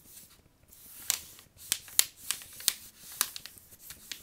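A sheet of paper being handled and folded, its crisp crackles and snaps coming as a string of short, sharp sounds from about a second in.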